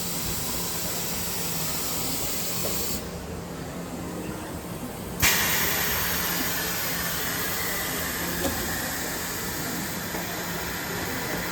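Steady hissing background noise. About three seconds in its high end drops away for roughly two seconds, then comes back all at once.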